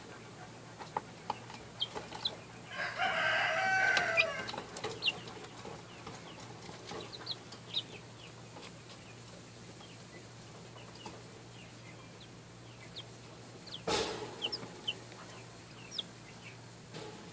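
Young Wyandotte chicks peeping, with short high chirps throughout. About three seconds in, one bird gives a louder, drawn-out call of about two seconds, and a single sharp knock sounds near the fourteen-second mark.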